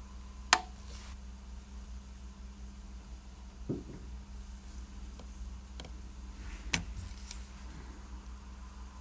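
Sharp clicks and a duller knock from small watchmaker's tools and parts handled on a bench: two loud clicks, about half a second in and near seven seconds in, and a softer knock near four seconds, over a steady low hum.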